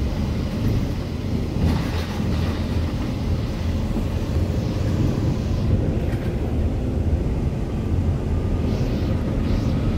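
Steady low engine and road rumble of a Volvo B8RLE articulated city bus under way, heard from inside the passenger cabin, with a couple of brief hisses.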